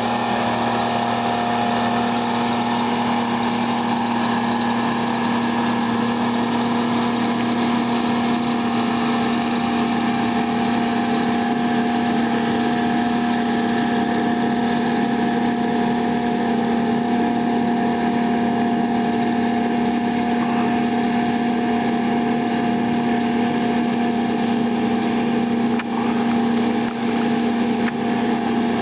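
Engine of an FMC tracked log skidder running steadily at constant speed, with a few brief dips in loudness near the end.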